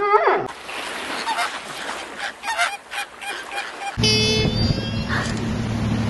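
Short honking animal calls repeated several times over a noisy background, then an abrupt cut about four seconds in to a different animal sound over a low steady drone.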